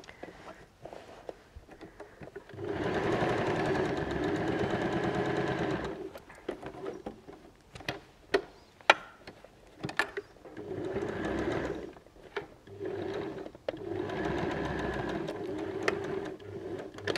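Janome electric sewing machine top-stitching through layers of fabric in bursts: one steady run of about three seconds, then a pause with sharp clicks, then several shorter runs near the end.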